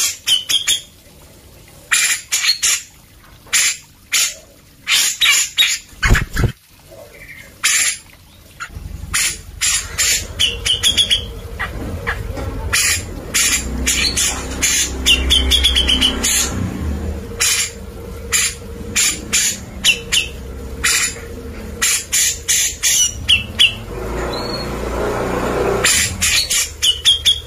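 Grey-cheeked bulbul (cucak jenggot) singing vigorously: quick bursts of short, loud notes separated by brief pauses.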